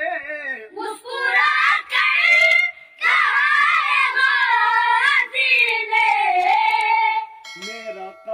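A group of boys singing a line of an Urdu devotional manqabat together in high, long-held notes, with a short break about three seconds in. A man's lower singing voice is heard at the start and again near the end.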